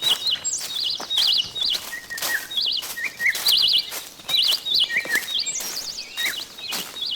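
A bird chirping in short, quick warbled phrases, about two a second, with scattered sharp clicks between them.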